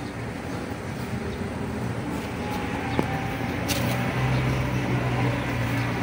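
Road traffic: a steady rumble of vehicles, with an engine's low hum swelling from about four seconds in and a single sharp click near the middle.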